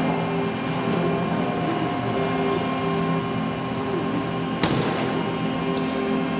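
A steady droning chord of several held tones, part of the performance's sound score. About four and a half seconds in, a single sharp knock cuts through it.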